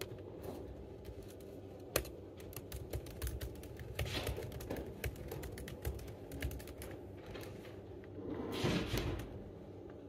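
Typing on an Apple MacBook laptop keyboard: irregular soft key clicks, with one sharper, louder click about two seconds in. Near the end a louder noise lasts about a second.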